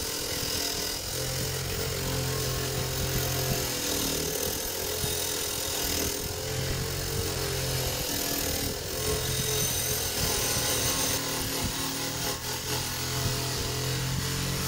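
Aicer AC1015 150 W bench grinder running with its wire wheel brushing rust off steel auger bits pressed against it. A continuous scratchy brushing over the motor's hum, which comes and goes as the bit is pressed on and eased off.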